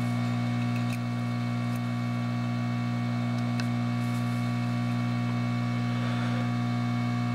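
Steady electrical mains hum, with a few faint ticks.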